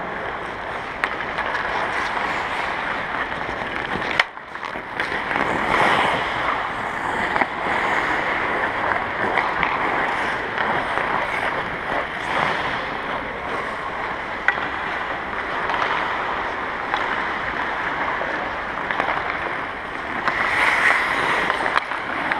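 Ice skate blades scraping and carving across the ice during hockey practice, a steady scraping hiss, with a few sharp knocks of sticks and pucks, one about four seconds in and another near the middle.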